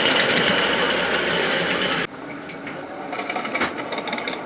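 A 5-inch-gauge miniature train running close by with a fast, even mechanical chatter, cut off suddenly about two seconds in. After that, a quieter stretch with a few light clicks.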